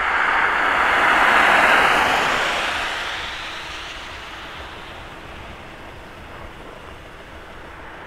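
A car passing on the road, its tyre and engine noise swelling to a peak about a second and a half in, then fading to a steady hiss.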